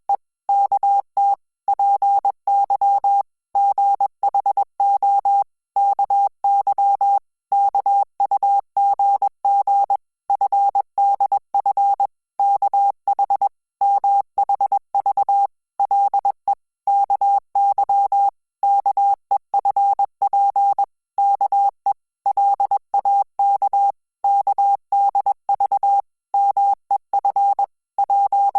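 Morse code at 20 words per minute: a single steady beep tone keyed on and off in short dits and longer dahs with brief gaps, spelling out Korean Hangul text.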